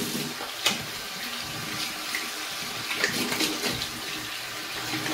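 Hot water running from a bathroom tap into the sink as soapy hands are rinsed under it, a steady splashing with a couple of sharper splashes.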